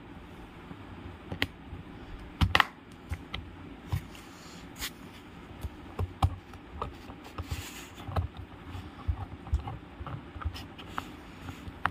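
Screwdriver turning a small terminal screw on a relay base: irregular small clicks and scraping ticks of metal on metal, with a few sharper knocks about one and a half, two and a half and five seconds in.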